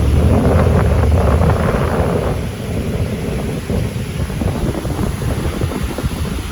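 Wind buffeting a phone's microphone in gusts, heaviest in the first two and a half seconds and easing after.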